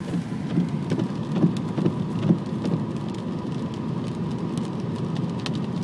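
Heavy rain hitting a car, with scattered sharp drop hits over a steady low rumble; the hits are loudest in the first couple of seconds.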